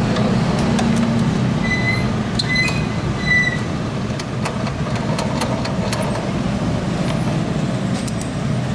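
Scattered metal clicks and taps of a wrench working on the bolts of a scooter's rear grab rail, over a steady low rumble. A few short high squeaks come about two to three seconds in.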